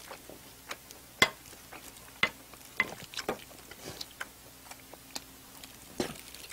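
Eating sounds: a scattered run of sharp clicks and taps from chopsticks on a ceramic plate of jajang rice and from chewing, spaced about a half-second to a second apart.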